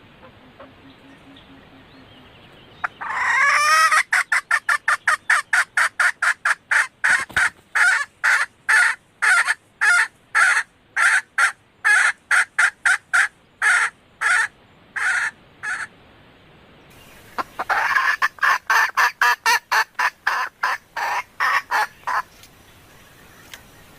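Female red junglefowl calling: a long run of rapid, repeated clucking notes that slows as it goes, then after a short pause a second, shorter run. This is the hen's call to attract a male.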